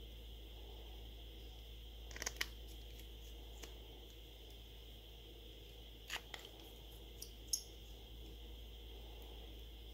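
A few small sharp clicks and taps of a precision screwdriver and the plastic-and-metal phone frame being handled during reassembly, grouped about two seconds in and again around six and seven seconds in, over a steady faint hum.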